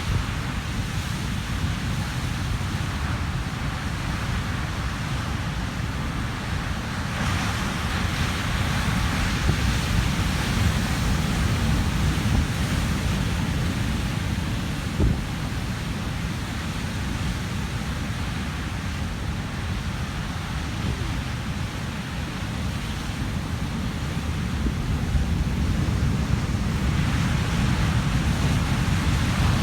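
Heavy Atlantic surf breaking and churning on a rocky shore, a continuous rush that swells with a breaking wave about seven seconds in and again near the end. Wind rumbles on the microphone throughout, with one brief thump about halfway.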